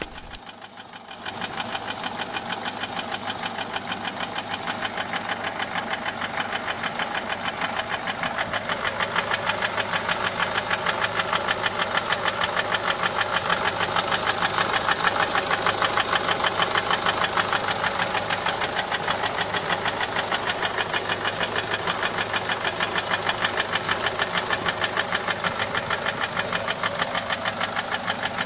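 Peugeot 407 1.6 HDi diesel engine running, with a fast, even metallic ticking from the top of the engine that starts about a second in. The mechanic takes it most likely for a broken rocker arm or a broken tappet.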